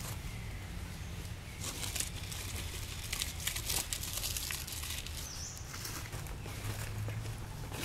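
Outdoor ambience: intermittent rustling and crackling over a low steady rumble, with one short, high, rising chirp a little past five seconds in.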